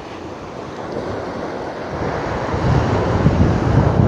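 Wind blowing across the microphone over the wash of small waves breaking on the shore. About two and a half seconds in, the wind buffeting turns heavier, a flickering low rumble.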